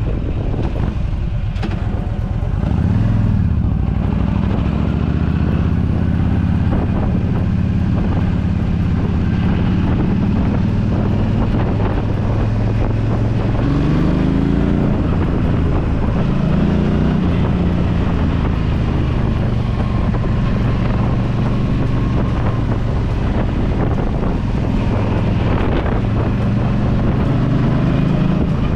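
Yamaha V Star 1300 Deluxe's V-twin engine running under way, its pitch rising several times as it accelerates, over wind noise on the microphone.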